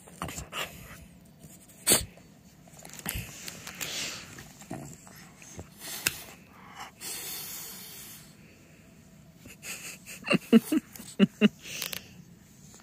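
French bulldog snorting and sneezing through its short flat nose, in scattered snorts and then a quick run of five or six short, loud bursts about ten seconds in.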